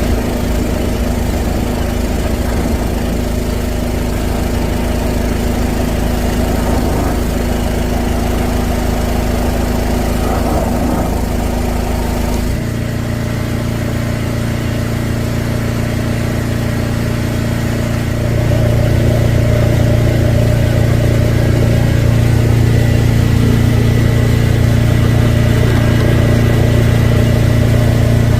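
Drain jetter's engine running steadily. Its note changes abruptly about twelve seconds in, and it grows louder a few seconds later.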